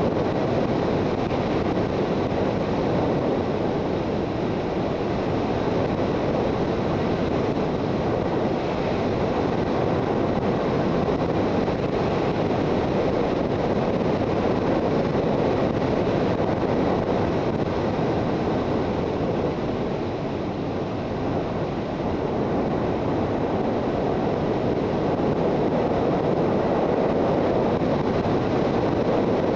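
Steady wind rush on the microphone of a Suzuki GSX650F motorcycle at road speed, with the bike's inline-four engine running underneath. It eases slightly about two-thirds of the way through.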